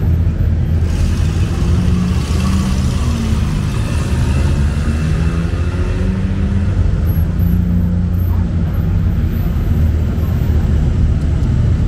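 Classic car engines running at low revs close by, with a rush of louder, higher noise from about one to four seconds in.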